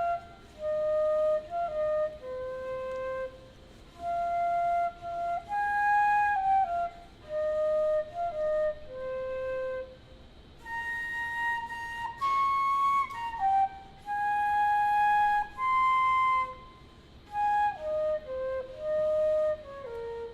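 Instrumental music: a single melody of held notes with a pure, flute-like tone, with short breaks between phrases.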